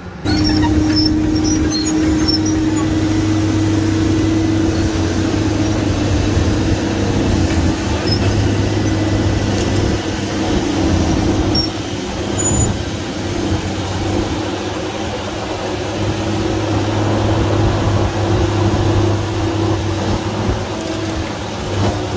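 Diesel engine of a heavy land-clearing machine running steadily at working speed, with a constant tone held over the engine drone.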